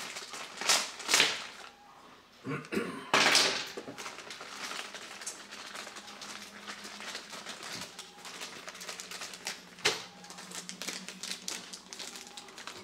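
Hands rummaging in cardboard toy packaging: cardboard scraping and rustling, with louder scrapes about a second in and again after three seconds. Small clicks, taps and plastic-bag crinkles fill the rest, with one sharp click near the end.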